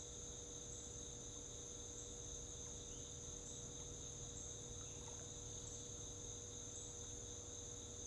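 Crickets chirring steadily in an unbroken high trill, over a faint low rumble.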